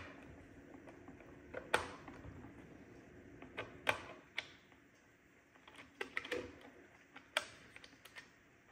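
Handheld screwdriver clicking and scraping in the screws of an iRobot Braava 380t robot mop's plastic underside, undoing the battery-cover screws. Irregular sharp clicks and taps, a second or two apart, with a short cluster about six seconds in.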